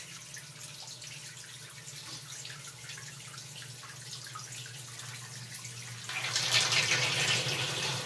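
Electric pedestal sump pump running with a steady hum as it pumps the pit down, with water moving underneath. About six seconds in it breaks into a louder gurgle as the water is drawn down to the bottom of the pit.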